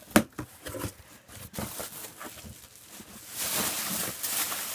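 Cardboard shipping box being pulled open: a sharp snap at the start as a taped flap comes free, then light scuffing and rubbing of the cardboard. In the last second and a half, a clear plastic packing bag crinkles loudly as it is lifted out of the box.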